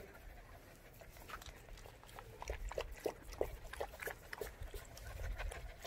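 Seven-week-old bernedoodle puppy making a string of short, soft sounds, starting about a second in, over a low rumble.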